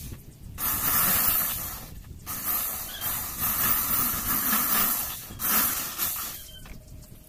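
Corded electric drill running, its bit cutting into a metal rack rail, with a hissing grind. It runs in three spells with brief stops about two and five seconds in, and falls away near the end.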